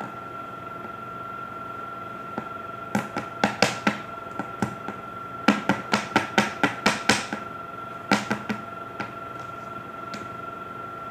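Quick sharp taps on a hard tabletop, in three short runs of several knocks each, from clay being pressed and patted into shape by hand. A steady electrical hum with a thin high whine sits underneath.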